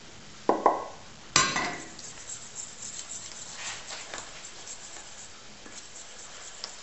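Two metallic clinks of stainless steel bowls and a spoon, about half a second and a second and a half in, the second ringing briefly. Then a spoon stirring flour into water in a stainless steel bowl, with faint scraping.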